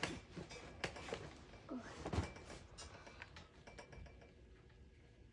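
A few light knocks and clicks with soft handling noise, the loudest a dull thump about two seconds in: painting things being handled at a table.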